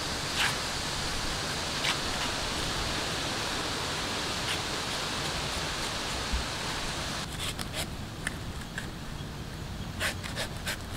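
A steady rushing hiss, then from about seven seconds in a series of short sharp knocks and scrapes as a knife cuts into ripe palmyra fruit on a wooden block, in two clusters.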